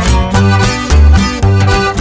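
Background music with a steady beat, its bass note sounding about twice a second under busy melodic parts.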